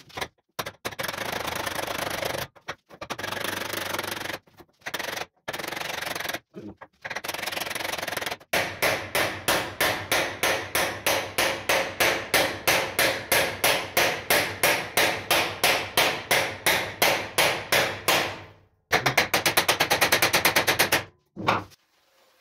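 Hammer blows on sheet metal, about three a second for some ten seconds, then a faster run of blows: folding the sheet metal into a box over angle iron. Before that come several stretches of steady noise, a second or two each, with short gaps between them.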